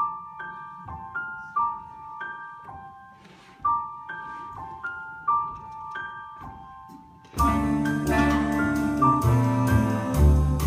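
Jazz piano opening with a sparse high melodic figure, single notes struck about every half second. About seven seconds in, the full small jazz orchestra comes in much louder: saxophones, bass clarinet, flugelhorn, trombone, tuba, double bass and drums.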